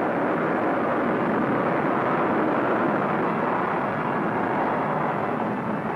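A large space rocket lifting off, its engines giving a steady rushing roar that eases slightly near the end.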